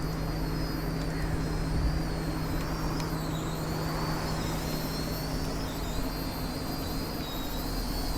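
Small quadcopter drone in flight, its motors and propellers giving a high whine that wavers up and down in pitch as it turns and straightens, over a steady low hum.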